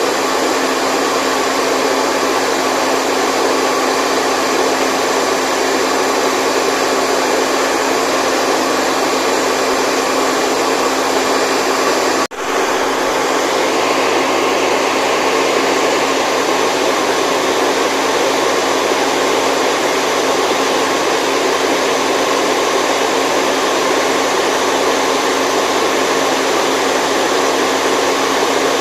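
Steady white noise with a faint motor-like hum in it, played as a baby sleep sound. It cuts out for an instant about twelve seconds in, then resumes.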